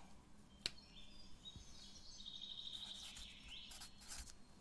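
Marker squeaking and scratching on paper as numbers are written, faint, with a fine rapid pulsing in the squeak and a few short strokes near the end. A single click about half a second in.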